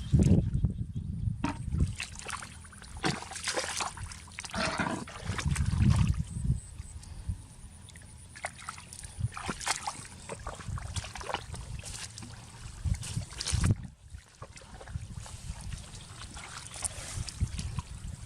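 Water sloshing and splashing irregularly, with scattered small knocks and clicks.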